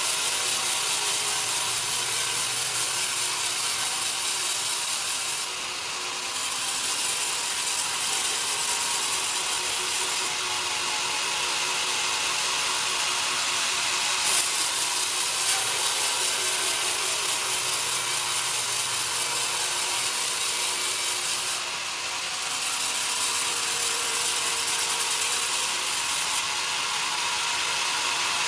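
Vertical bandsaw blade ripping young pine: a steady high hiss of the blade in the wood, dipping briefly twice, with one sharp click about halfway through.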